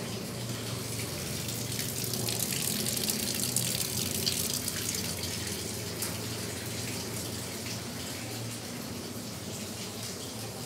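Water running from a tap, louder for a few seconds in the middle, over a steady low hum.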